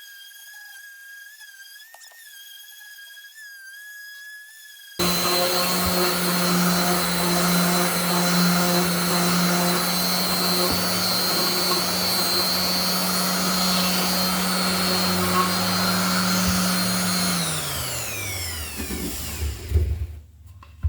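Electric wood sander switched on suddenly, running steadily on the elm handle pieces, then switched off and spinning down with a falling whine near the end. A faint wavering melody sounds before the sander starts.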